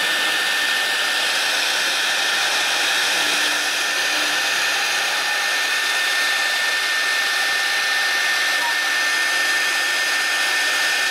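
Spindle of a 1530 4-axis CNC router running with a steady high whine, its side-mounted cutter drilling sideways into a block.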